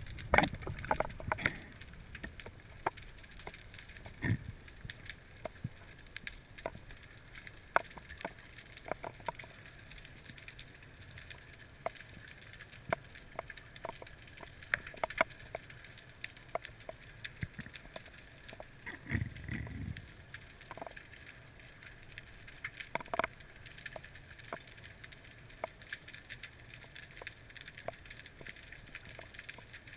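Underwater ambience picked up by a GoPro in its housing on a freediver's mask: a faint steady hiss with scattered sharp clicks and snaps, a few of them louder near the start, and a short low rumble about two-thirds of the way through.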